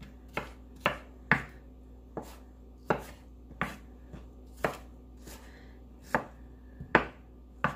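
Kitchen knife chopping strawberries on a wooden cutting board: about a dozen sharp knocks of the blade hitting the board, unevenly spaced roughly half a second to a second apart.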